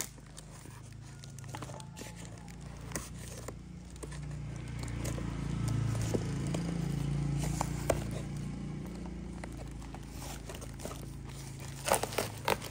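Scattered light crinkles and taps of a plastic-taped cardboard parcel being handled, then a short run of sharp crackling rips near the end as a knife blade cuts through the packing tape. A low hum swells in the middle and fades.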